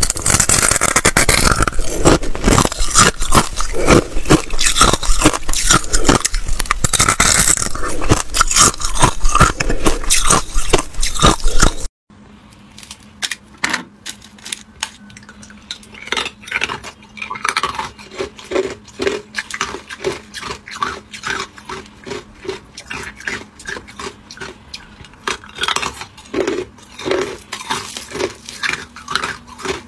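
Hard ice being bitten and crunched close to the microphone, a loud, dense run of cracks and crunches. After an abrupt cut about twelve seconds in, it turns to much quieter crunches and clicks a few times a second over a faint steady hum.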